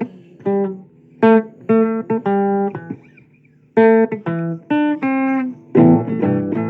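Guitar playing a blues phrase: separate plucked notes and chords, each ringing and dying away, with a brief pause about three seconds in and a quick run of strummed chords near the end.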